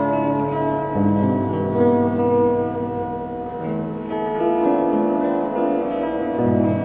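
Acoustic guitar played fingerstyle: plucked chords and melody notes ringing over changing bass notes.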